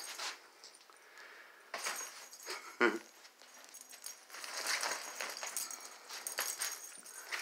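Crinkly nylon cat play tunnel rustling in irregular bursts as a cat scrambles through it, with one brief, louder thump about three seconds in.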